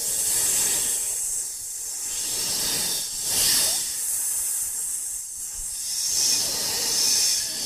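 Snake hissing sound effect, a giant snake's breathy hiss: several long hisses that swell and fade, the loudest about three and a half seconds in.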